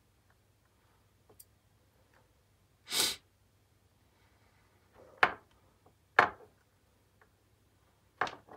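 Four short scraping, rustling noises a second or two apart, from thin wires and a black power cord being handled and pulled through a small plastic speaker housing, with low hum between them.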